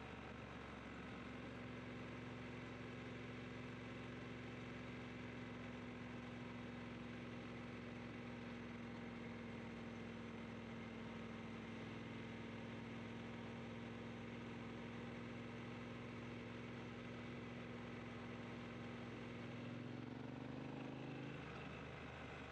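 Triumph T120 motorcycle engine running at a steady pitch, with the pitch shifting near the end.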